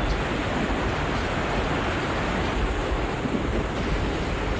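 Violent tornado winds blowing over a camcorder's microphone: a steady, loud rushing noise with low buffeting rumble from the wind striking the mic.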